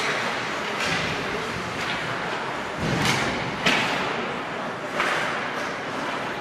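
Ice hockey play near the boards: skates on the ice and sticks, with several short thumps, the sharpest about three and a half seconds in.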